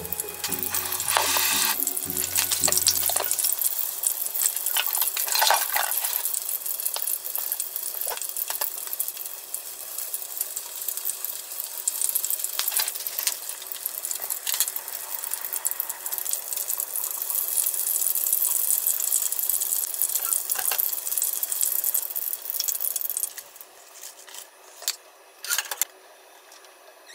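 Breaded prawns deep-frying in a small rectangular pan of oil: a steady, loud sizzle broken by occasional sharp clicks. The sizzle stops about 23 seconds in, leaving a few light taps.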